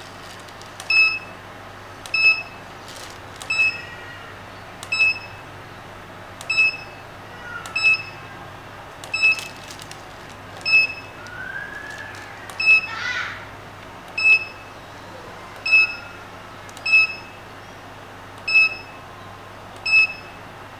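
Short, high electronic beep repeating about every one and a half seconds, over a steady low electrical hum.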